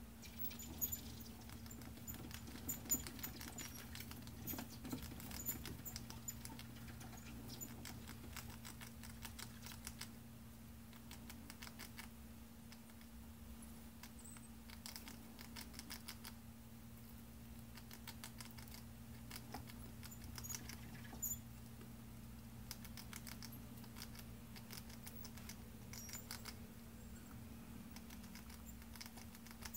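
Baby degus scrabbling about on hay and plastic: a faint, irregular patter of small clicks and rustles, busiest in the first dozen seconds and again near the end, over a steady low hum.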